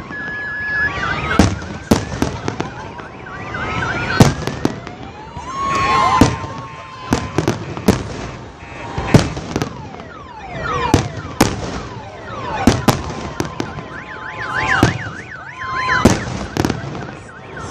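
Fireworks display: shells bursting in a string of sharp bangs, about one or two a second, mixed with crackling and whistling tones that glide up and down.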